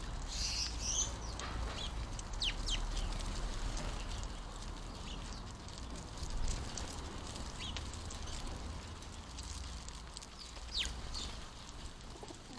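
House sparrows chirping at a bird feeder: short, scattered high chirps, several together in the first second and single ones later, over a steady low rumble.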